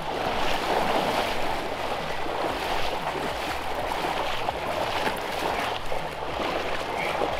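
Water sloshing and splashing around a person's legs as he wades through a creek.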